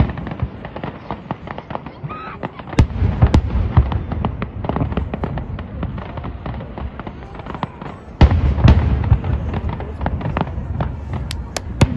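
Aerial fireworks going off: a dense stream of sharp crackling pops, with two deep booms of shells bursting, about three seconds in and again just past eight seconds.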